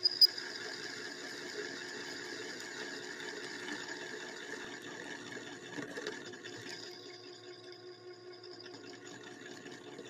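Homemade small CNC lathe running, its spindle turning the workpiece with the turning tool at the tip. A steady machine whine made of several tones, with two sharp clicks right at the start; one tone drops out about seven seconds in.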